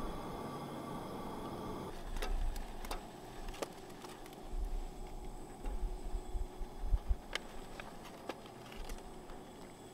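Metal spoon and aluminium camp pot being handled on a propane camp stove: a few sharp clicks and clinks spread through, with some low thumps near the middle. A steady low rush fills the first two seconds and then stops.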